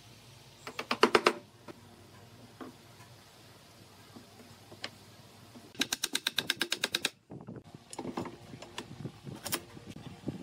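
Wooden block striking chair-frame pieces to drive glued joints home: two quick runs of sharp wood-on-wood knocks, about a second in and again around six seconds in, then scattered lighter knocks.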